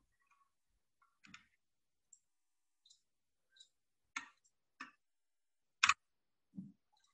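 Computer mouse clicking: about seven separate clicks, the loudest one near the end.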